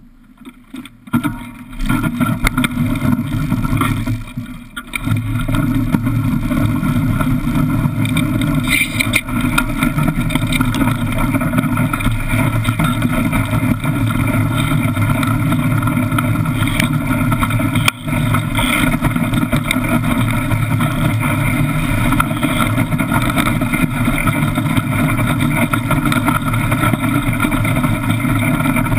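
Iceboat runners scraping and rumbling over lake ice, starting as the boat gets moving in the first couple of seconds and settling into a steady loud rush from about five seconds in.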